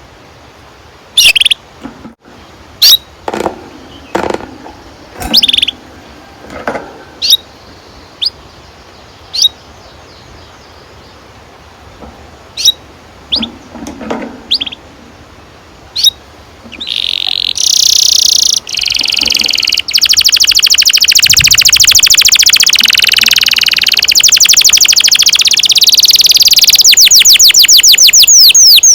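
Domestic canary giving short, separate chirps, then just past halfway breaking into a loud, long continuous song of fast rolling trills.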